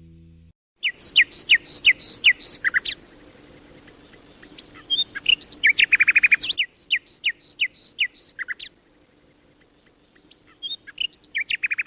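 Common nightingale singing: phrases of sharp repeated notes and whistles, with a fast rattling trill around the middle, in three bursts with pauses between.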